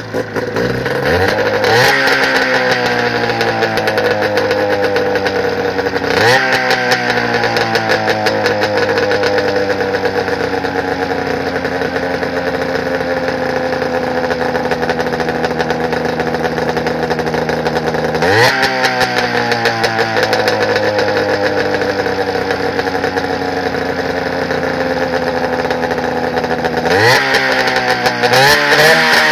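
Two-stroke twin engine of a 1997 Arctic Cat 440 snowmobile built with race carbs, pistons and heads, running with the hood open. It is revved four times; each time the pitch jumps up quickly, then sinks slowly back toward idle over several seconds.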